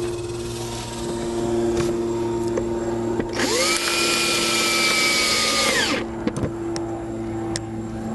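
Power drill driving a screw: about three seconds in it spins up to a whine, runs for about two and a half seconds with its pitch sagging slightly, then winds down. Light clicks and a steady low hum run underneath.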